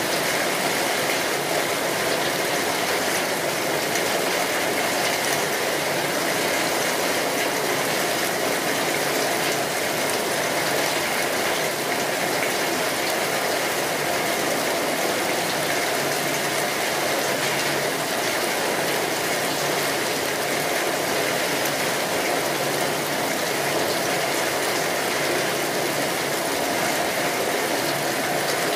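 Steady rain falling, an even, unbroken patter with no changes in level.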